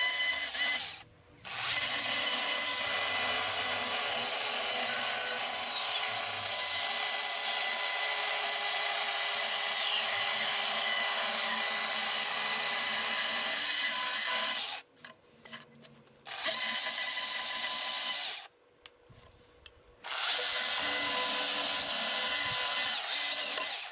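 Chainsaw cutting into a wooden sign board, carving away the background wood so the letters stand raised. Its steady high-pitched whine cuts off briefly about a second in and twice more in the second half, then picks up again.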